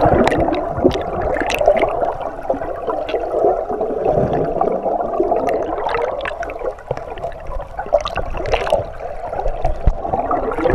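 Muffled, churning underwater noise of river water and bubbles heard through a camera's waterproof housing, with scattered sharp clicks and knocks.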